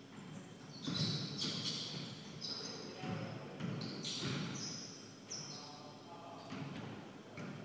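Basketball being dribbled on a hardwood gym floor, with sneakers squeaking several times in short high squeals as players cut and shuffle on defence.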